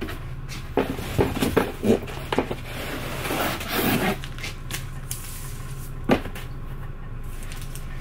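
Items being handled on metal wire storage shelves: a run of knocks and rubbing in the first half and one sharp knock about six seconds in, over a steady low hum.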